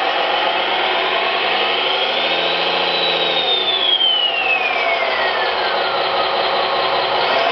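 Simulated engine sound from an RC model's SMX sound card, played through its small speaker, revving up over about three seconds and then falling back toward idle, with a thin high whine that rises and then glides down with the revs.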